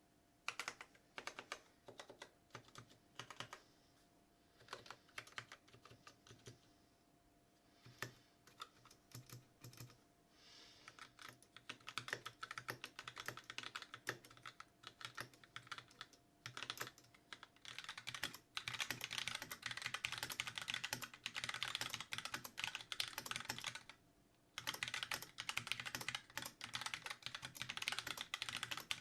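Typing on a Magicforce 68 mechanical keyboard with Gateron Black linear switches: separate keystrokes at first, building into fast, continuous typing about halfway through, with one brief pause near the end.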